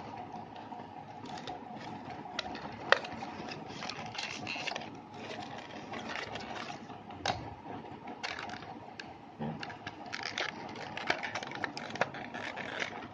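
Packaging of a USB data cable being opened and handled by hand: crinkling and scraping with scattered sharp clicks, one of the sharpest about three seconds in.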